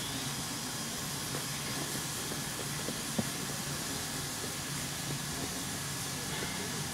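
Steady hiss of a standing steam locomotive letting off steam, with one sharp click a little over three seconds in.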